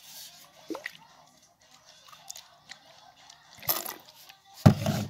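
Liquid slime activator squirted from a plastic squeeze bottle into a bowl of slime, in two short spurts near the end, the second the louder.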